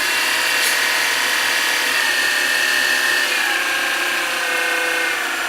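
The 180-watt motor of a homemade wood lathe running at high speed on a frequency converter, turning the spindle through a belt: a steady electric whine. From about three seconds in, its pitch steps down as the converter's frequency is lowered from its 150 Hz maximum towards 100 Hz.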